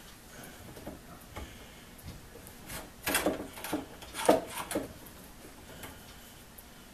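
Metal clicks and clacks of a plier-type saw set being fitted over and squeezed onto the teeth of a one-man crosscut saw blade, setting the teeth one by one. A quick run of sharper clicks comes about three to five seconds in.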